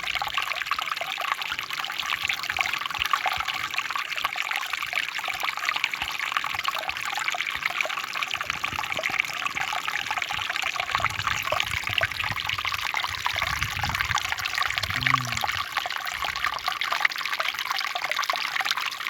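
Water running and trickling steadily, a continuous fine splashing. A faint low rumble comes in about halfway through and fades after a few seconds.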